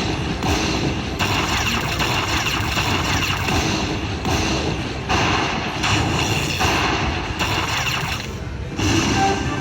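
Lightning Link slot machine sound effects during a bonus feature: a run of loud, noisy blocks that switch on and off abruptly about every second, with thuds mixed in.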